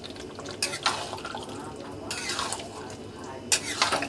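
Metal spatula stirring a thick paneer and chickpea curry in a steel kadhai: a few wet, scraping strokes against the pan about a second and a half apart.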